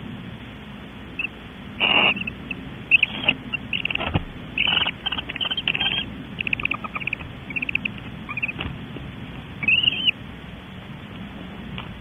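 Barn owls twittering: a string of short, high chittering calls, some in quick rapid runs, ending with one longer arched call about ten seconds in. A couple of soft knocks fall among the calls, over a steady hiss.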